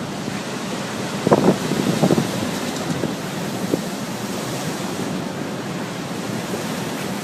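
Storm wind and heavy surf: a loud, steady rushing with wind buffeting the microphone, and a few louder low surges about a second and a half to two seconds in.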